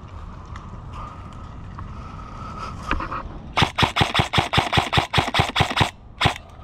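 Airsoft gun firing a quick, even string of about fifteen shots, roughly seven a second, for a little over two seconds, then one more shot half a second later.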